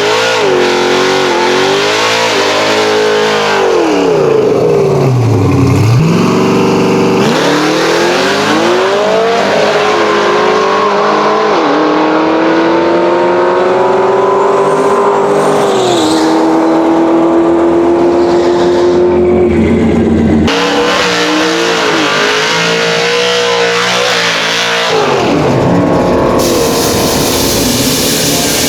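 Pontiac G8's modified LS V8 engine revving and running hard, its pitch dropping low and climbing again, then holding steady for several seconds, with abrupt changes between takes.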